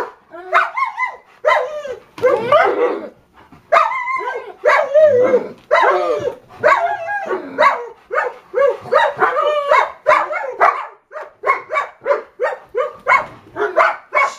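Dog barking over and over in a fast unbroken run of short barks and yips, about two a second.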